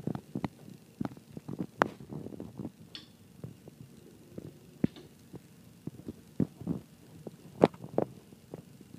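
Irregular soft thumps and clicks, a few sharper knocks among them, the loudest near the end.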